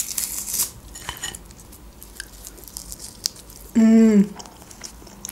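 Dried salted fish being torn apart by hand: a dry, crackling rip in the first second, then a few small crackles and clicks. About four seconds in comes a short hummed "mm" from a woman's voice.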